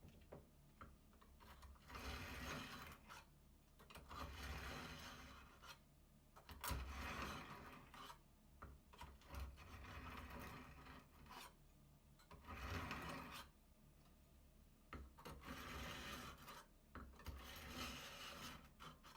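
Kitchen knife shredding a head of cabbage on a cutting board in short runs of quick, crisp rasping cuts, each run a second or two long with short pauses between.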